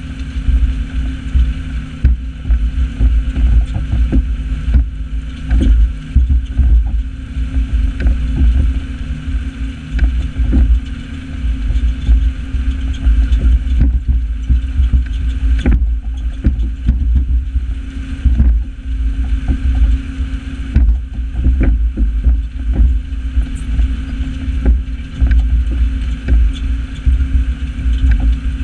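New Holland 8160 tractor's six-cylinder diesel engine running steadily under load while pulling a four-furrow reversible plough, with heavy wind buffeting on the microphone and scattered knocks and rattles.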